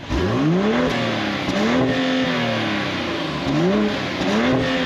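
2024 BMW X6 xDrive40i's turbocharged 3.0-litre straight-six with the M Sport exhaust, revved several times, the pitch rising and falling with each blip.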